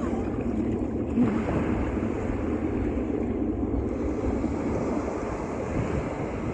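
Steady rushing of stormy wind buffeting the microphone, mixed with the wash of surf.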